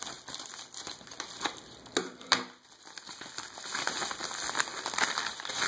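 Crinkling and rustling of a flat shipping mailer as it is handled and opened, with a couple of sharper crackles about two seconds in.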